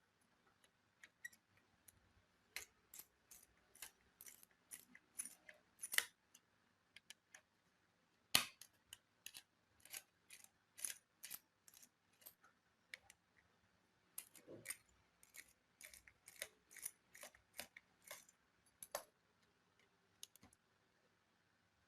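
Runs of sharp, light clicks, about two to three a second with short pauses between the runs: small tools and parts being handled while an HP laptop is taken apart.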